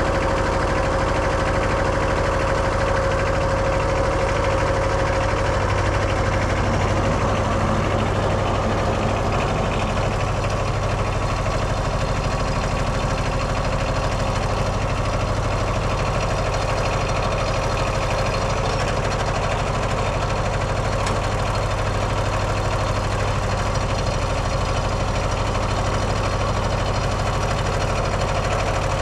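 Kohler 17 hp diesel engine of a Wood-Mizer LT15 portable sawmill running steadily.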